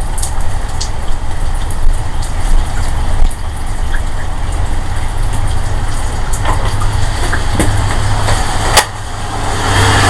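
A steady low droning rumble from outside, with scattered sharp clicks and one louder click about nine seconds in. The source is unidentified.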